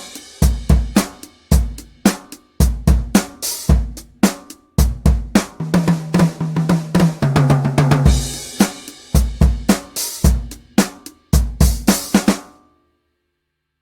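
Toontrack EZdrummer 3 sampled acoustic drum kit playing a groove of kick, snare, hi-hat and cymbal hits, with crashes near the start and about two-thirds through. It stops near the end.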